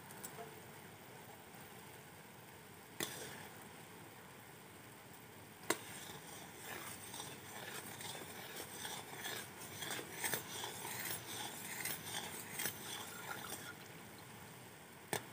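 Sugar syrup boiling to a froth in a metal kadhai, bubbling steadily while a metal spatula stirs and scrapes the pan. The spatula knocks sharply against the pan three times, about 3 and 6 seconds in and at the very end, and the bubbling and scraping grow busier from about 6 to 13 seconds in.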